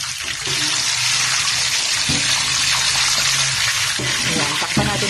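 Whole chicken deep-frying in a pot of hot oil: a loud, steady sizzling hiss of hard-bubbling oil, swelling slightly about half a second in.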